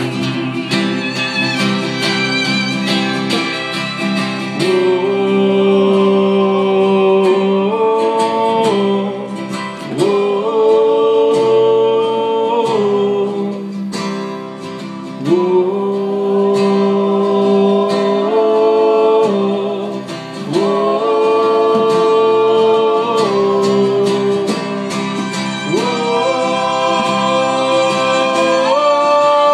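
Live acoustic folk band playing: guitar with long held, wordless sung or bowed notes in phrases a few seconds long.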